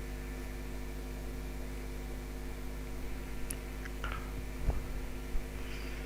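Steady electrical mains hum in the recording, with a few faint clicks in the second half.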